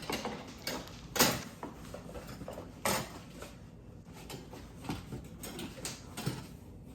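Parts and packaging being handled while unboxing: irregular clatter, knocks and rustling, with the sharpest clacks about a second in and about three seconds in.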